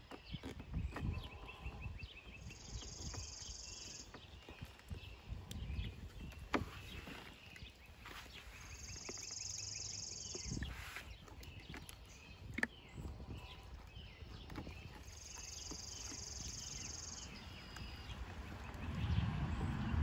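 Fillet knife cutting along the Y-bones of a northern pike, with faint scattered clicks and scrapes as the blade runs against the bones. A high buzz repeats three times in the background, each lasting a second or two.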